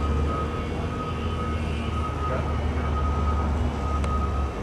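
ZD Fly Fantasy Racer electric RC plane flying overhead, its Neodym NEO-10 brushless motor and propeller giving a steady, even-pitched drone. Under it runs a steady low rumble that cuts off near the end.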